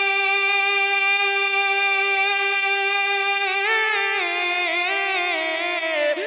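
A man singing a naat unaccompanied into a microphone, holding one long note, then breaking into a wavering, ornamented run of quick pitch turns about three and a half seconds in.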